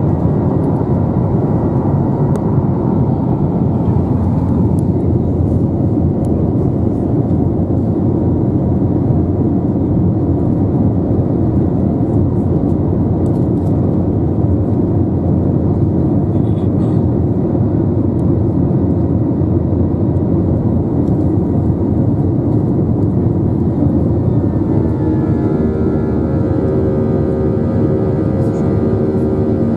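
Airbus A321 cabin noise: a loud, steady rumble of the jet engines and passing air. About 25 seconds in, a set of steady humming engine tones comes in over it.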